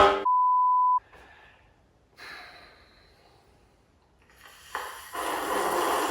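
A short steady beep tone lasting under a second, followed by breathy sounds, one brief and one longer, like heavy exhaled sighs.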